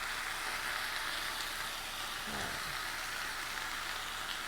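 Beef, green onions, tofu and vegetables sizzling steadily in a hot oiled skillet, frying before the sukiyaki sauce goes in.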